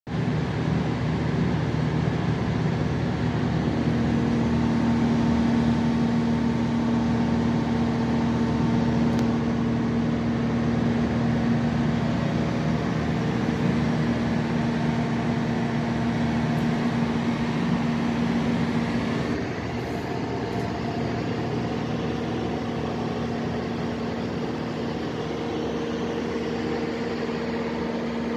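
Large Mitsubishi diesel engine of a Kohler generator set running steadily, a loud continuous drone with a steady hum; it drops a little in level about two-thirds through.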